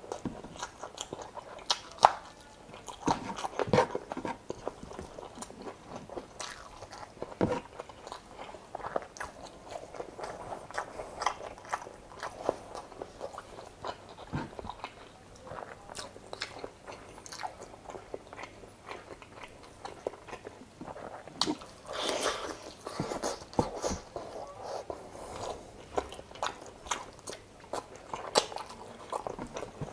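Mouth sounds of a person eating chicken adobo and rice by hand: chewing, with many short sharp clicks and smacks throughout, busier about two to four seconds in and again about two-thirds of the way through.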